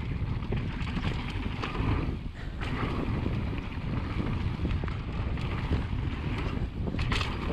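Mountain bike rolling fast down a dirt forest trail: wind noise on the microphone over a steady tyre rumble, with the bike rattling and knocking over bumps a few times.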